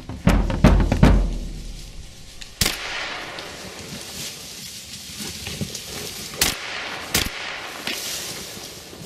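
Three gunshots at driven wild boar: one about two and a half seconds in, then two close together around six and a half to seven seconds. Heavy drum beats of the background music fill the first second or so.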